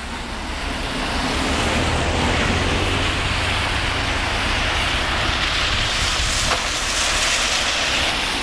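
Strong storm wind blowing steadily, buffeting the microphone with a low rumble under a broad hiss; it builds over the first second or two.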